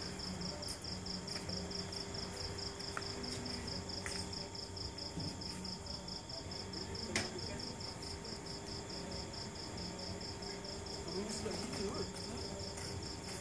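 Crickets chirping in a steady, fast, evenly pulsed high trill, with one sharp click about halfway through.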